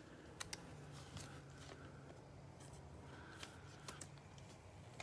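Faint, sparse light clicks and rustles of a trading card being handled and slid into a clear plastic card sleeve by gloved hands.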